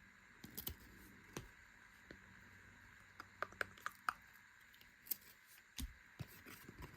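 Faint scattered clicks and taps of baseball trading cards being handled and flipped through, with a quick run of sharper clicks about halfway through and a few dull taps near the end.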